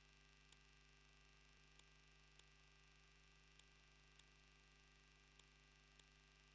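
Near silence: a faint steady electrical hum with faint regular ticks in pairs, from the wildlife camera's faulty audio feed.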